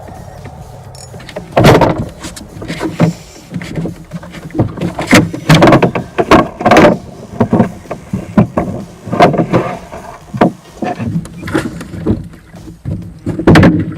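Irregular close knocks, bumps and rustles of handling, loud and uneven.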